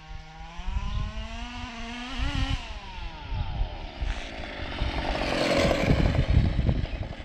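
Zenoah G320 32cc two-stroke engine of a 1/5-scale RC buggy, fitted with a silenced side pipe, revving up with its pitch climbing over the first two or three seconds. The sound then grows to a louder rush as the buggy comes in close, loudest around five to six seconds in.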